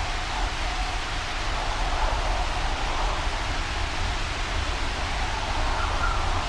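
Steady wind-and-rain storm ambience: an even hiss with a faint wavering whistle in the middle and a low rumble underneath, without pause or thunder claps.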